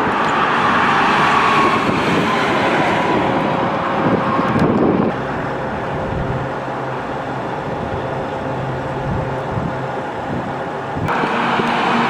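Steady road and engine noise of a moving tour bus, heard from inside. The sound shifts abruptly about five seconds in and again near the end.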